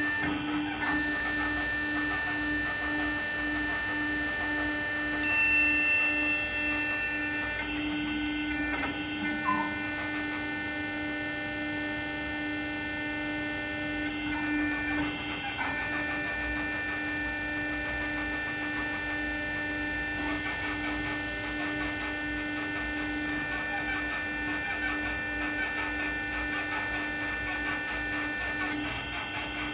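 Hydraulic power unit of a monoser PB15-R3 concrete placing boom running: its electric motor and hydraulic pump give a steady hum, with a few short shifts in tone as the placing arm is moved out.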